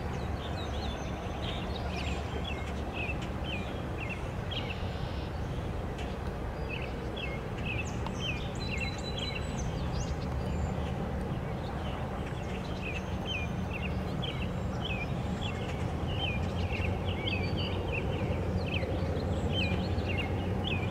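Birds chirping in many short, quick notes, over a steady low rumble from the receding welded-rail train.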